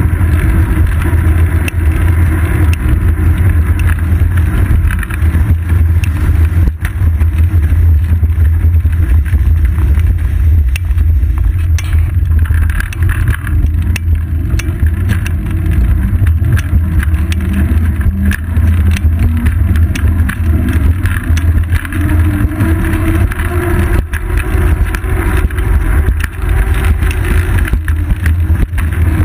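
Steady deep rumble of wind and road vibration picked up by a GoPro Hero 2 on the seat post of a moving bicycle, with an occasional sharp knock from a bump in the road.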